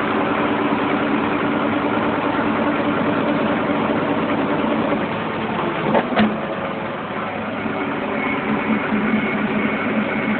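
Bobcat skid steer's diesel engine running steadily, with a single sharp knock about six seconds in.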